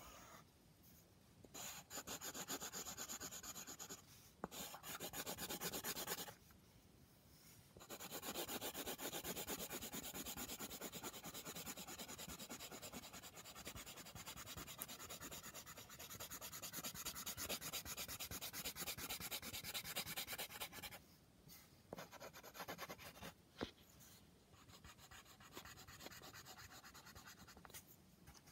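Grey coloured pencil shading on paper: a fast, scratchy rubbing of many short back-and-forth strokes in long runs. There are a few short pauses, and the strokes are softer and sparser near the end.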